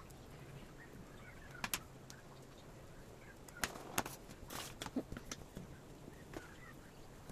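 Light taps and pats of hands working play clay on a wooden tabletop, with a few sharper clicks and knocks, most of them around the middle.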